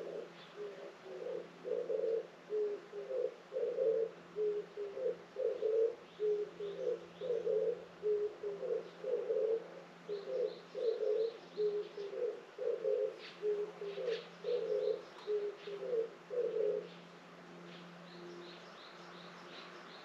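A dove cooing: a long, regular series of low, hollow coos, about one a second, which stops near the end. Small birds chirp faintly in the background.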